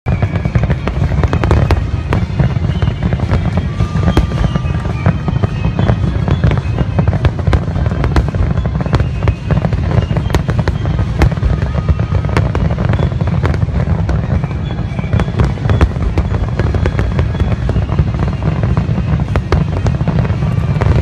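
Aerial fireworks display: a rapid, nearly continuous barrage of sharp bangs and crackles over a steady low rumble.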